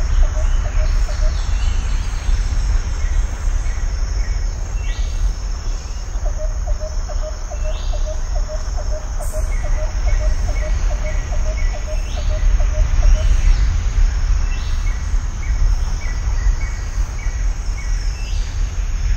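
Outdoor ambience: birds calling in quick runs of short repeated chirps over a steady high insect buzz, with a loud, uneven low rumble underneath.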